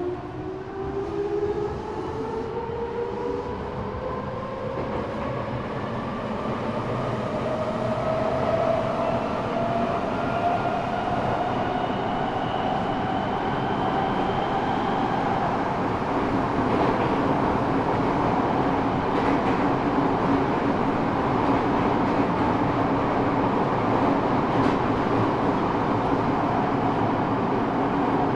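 Eidan 6000-series subway car's high-pitched Mitsubishi three-level VVVF inverter, reused from the 7000 series, whining under the floor as the train accelerates, several tones rising steadily in pitch. About halfway through the rising tones fade and the train runs on with a steady rumble of wheels and motors.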